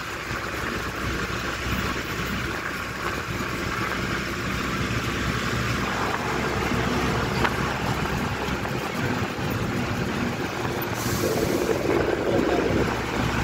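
Steady engine and road noise of a moving vehicle crossing a bridge, heard from inside it, with a short hiss about eleven seconds in.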